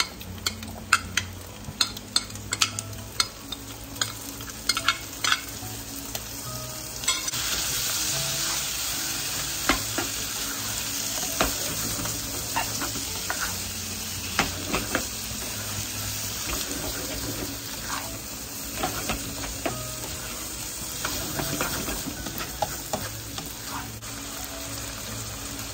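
Spatula stirring and knocking in a non-stick wok as meat, scrambled egg and spring onion fry, with many sharp clicks and scrapes in the first several seconds. About seven seconds in, the frying sizzle grows louder and steady, with occasional spatula knocks over it.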